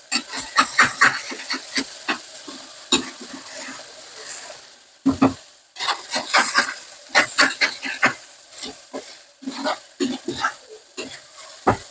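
Onions frying with mustard seeds, fennel and clove in hot oil, sizzling with a steady hiss while a spoon stirs and scrapes against the pan in irregular clinks and knocks.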